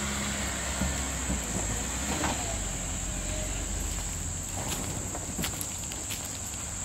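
Jeep Wrangler JK engine running at a low, steady crawl as it creeps over a rutted dirt track. A few short knocks and creaks come from the running gear, under a steady high-pitched insect buzz.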